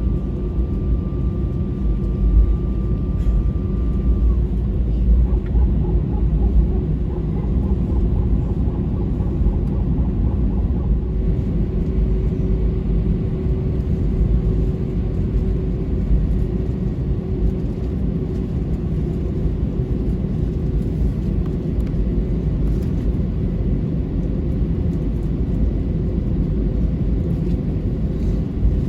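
Airbus A320 cabin during takeoff: a loud, steady rumble of the engines at high thrust and the rush of air past the fuselage. A faint high whine cuts off about four seconds in.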